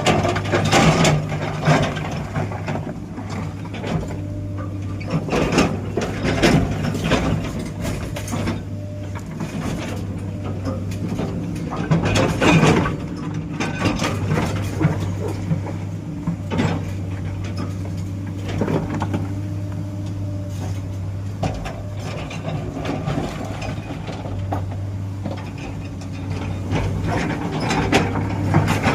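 Heavy diesel construction machine running with a steady low engine hum, with repeated metallic clanks and knocks from its working parts.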